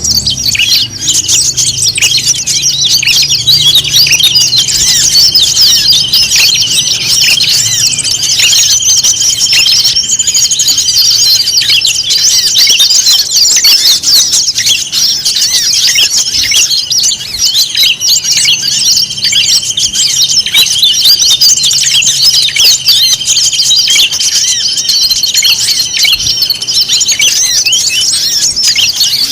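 Dense chorus of many small songbirds chirping and twittering over one another, a mixed bird-lure call recording. A steady high buzzing note runs under the chirps for long stretches, stopping twice.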